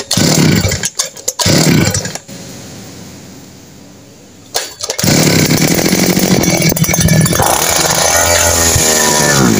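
Kawasaki TD40 two-stroke brush cutter engine being pull-started: two short recoil-starter pulls, then about five seconds in it fires and runs loudly. It is running on gasoline dripped straight into the carburetor, a test for a clogged carburetor.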